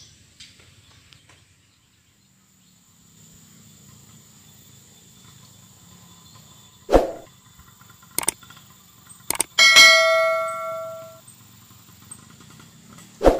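Subscribe-reminder sound effect: a few sharp clicks, then a bright bell ding that rings out for about a second and a half. Underneath is the faint, steady low hum of a motorcycle engine.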